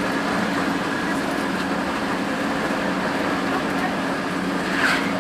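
Hino RN285 bus running steadily on the road, a constant engine hum with road and cabin noise, and a brief hiss about five seconds in.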